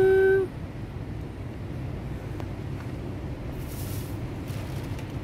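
Steady low rumble of street traffic, with a brief hiss about four seconds in. A short, drawn-out high call rises and holds for about half a second right at the start.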